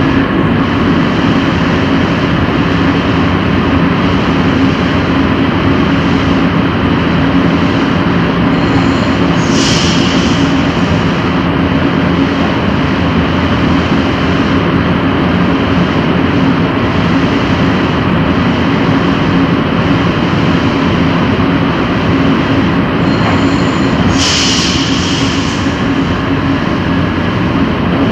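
Electric passenger train running steadily, with a continuous rumble and a low steady hum. Two brief high hisses come through, about ten seconds in and again near the end.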